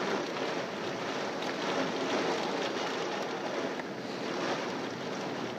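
Severe thunderstorm: strong wind and heavy rain making a steady rushing noise, swelling slightly in gusts.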